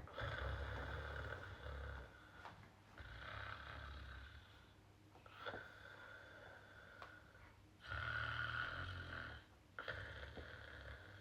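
A woman snoring softly: about five slow snoring breaths, one every two seconds or so.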